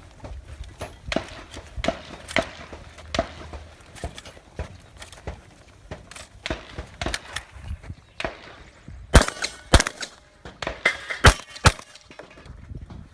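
Shotgun fire during a timed shooting stage: an irregular string of sharp reports and clacks, a few a second, the four loudest coming close together about two-thirds of the way in.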